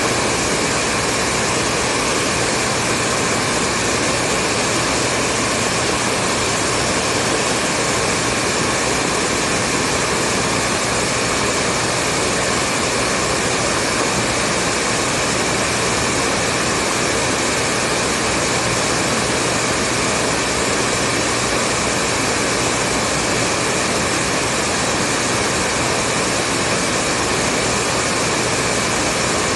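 Hair dryer blowing steadily, a continuous rushing noise from its fan and heater airflow with a faint steady hum underneath.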